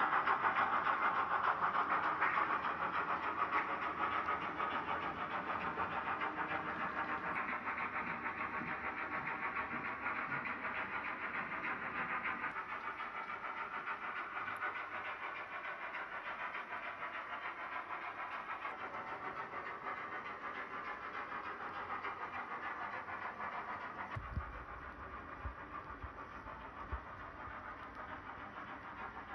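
H0 model train running on the layout's track, a steady mechanical whir and rail noise that fades gradually as it moves away. A low thump comes about 24 seconds in, followed by a few light clicks.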